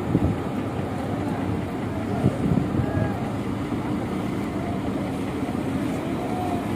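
Steady low diesel engine rumble around a cargo wharf, with wind buffeting the microphone and two brief thumps, one just after the start and one about two seconds in.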